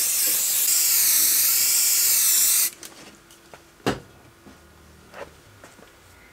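Aerosol spray can of isopropyl alcohol hissing in one long burst of about three seconds, its tone wavering slightly, then cutting off sharply. About a second later comes a single knock.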